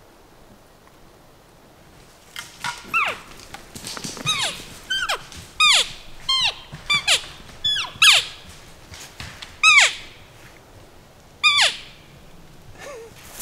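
Bull elk making cow-like mews: a series of about a dozen high squealing calls, each sliding steeply down in pitch, starting about two seconds in and running until near the end.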